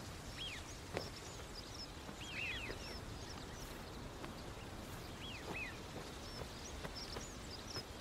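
Small birds chirping in short, scattered calls over a faint, steady outdoor hiss, with a single soft tap about a second in.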